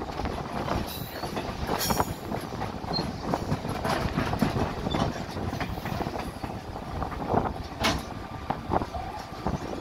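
Passenger cars of the White Pass & Yukon Route narrow-gauge railway rolling along the track, heard from aboard: a steady rumble of wheels on rails with irregular sharp clacks, the loudest about two seconds in and near the end.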